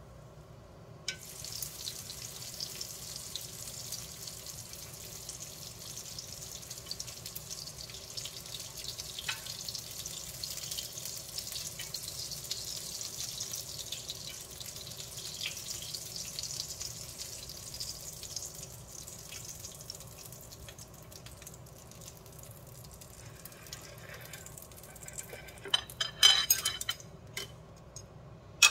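Pieces of steak sizzling in a small rectangular frying pan on a gas burner: the sizzle starts sharply about a second in as the meat goes into the hot pan, holds steady, then dies down in the last third. Near the end come a few loud, sharp clacks of utensils.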